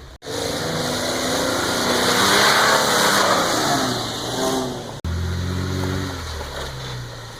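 Lifted off-road Jeep's engine revving under load, building to a peak a few seconds in and then easing off. About five seconds in the sound cuts abruptly to a lower, steadier engine note.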